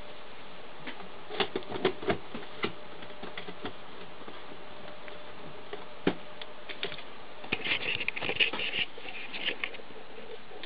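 Scattered light clicks and taps over a steady hiss, with a quick run of clicks about eight seconds in.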